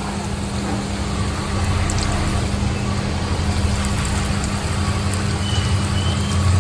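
Chopped steamed colocasia-leaf (patod) pieces frying in hot oil: a steady sizzle with a few small pops, over a low steady hum.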